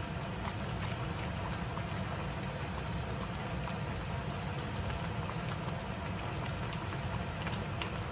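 Pot of kimchi and Spanish mackerel braise simmering on the stove: steady bubbling with scattered small pops.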